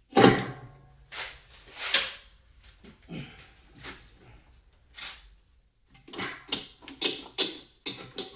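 Metal tools knocking, clanking and rattling against stuck fuel injectors as they are twisted and worked loose. A sharp, ringing clank comes about a quarter second in, then scattered knocks, and a quick run of rattling clicks near the end.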